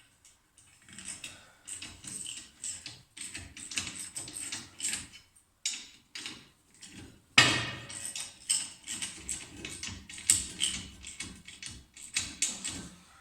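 Steel tools and parts clanking and clicking in irregular bursts, with a ratchet-like rattle, as a homemade steel holding bar is fitted to a VW Beetle's rear wheel hub. One heavy metallic clank comes about seven seconds in.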